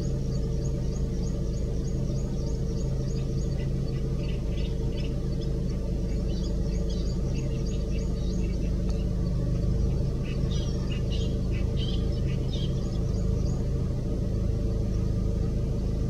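Small birds chirping in quick runs of short high notes that die away near the end, over a steady low rumble with a motor-like hum.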